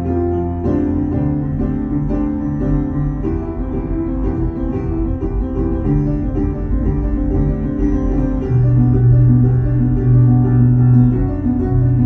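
Instrumental background music with sustained, changing notes over a bass line. The music grows fuller and a little louder about two-thirds of the way through.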